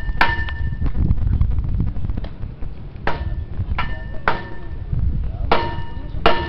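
A metal object struck repeatedly: about six sharp clinks at uneven intervals, each ringing briefly at the same pitch, over a low rumble.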